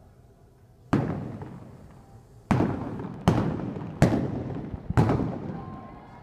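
Five revolver shots fired from horseback at balloon targets, irregularly spaced over about four seconds, each followed by a long echo in the indoor arena.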